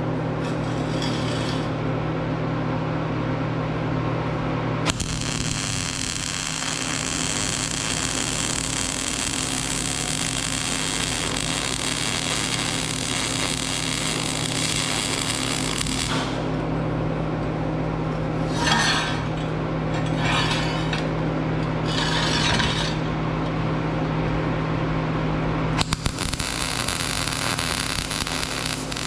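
Scrap metal being worked with a power tool or welder: a long hissing run of about ten seconds, three short bursts a little apart, then another run starting near the end, over a steady electrical hum.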